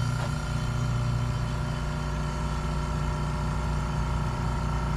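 Fortress Ultra Quiet 2-gallon air compressor running steadily just after being switched on: an even, low hum with no change in pitch or level.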